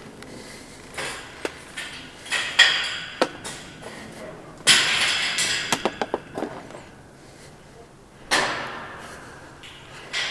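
Footsteps on steel bar grating: irregular metallic clanks and knocks, with a few longer scuffing, rattling bursts as the grating is walked on.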